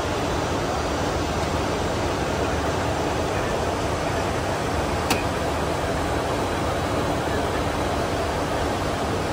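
Steady rushing flight-deck noise of a Boeing 747-400 in flight, mostly air over the cockpit and the air-conditioning, with a low rumble under it. A single sharp click about halfway through.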